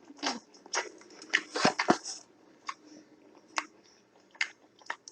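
Close-up eating sounds: chewing with small wet mouth clicks, bunched together in the first two seconds, then single clicks about a second apart.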